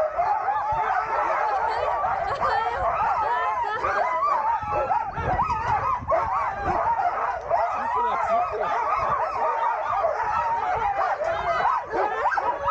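A yard full of sled dogs barking, yipping and howling all at once, many voices overlapping in a continuous chorus.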